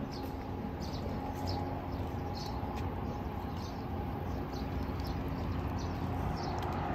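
Small birds chirping in short repeated notes, about two a second, over a steady low outdoor rumble.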